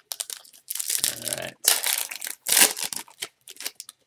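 A foil trading-card pack wrapper being torn open and crinkled by hand, in a run of crackly rustling and ripping bursts, loudest in the middle.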